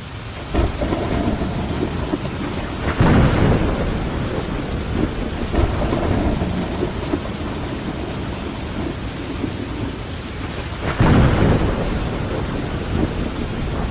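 Steady rain pattering on a window pane, swelling in just at the start, with two low rolls of thunder about three seconds in and again about eleven seconds in.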